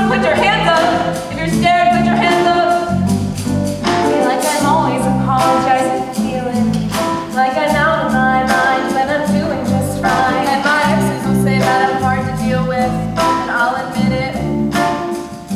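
Pop song with a woman singing over a steady beat and chords.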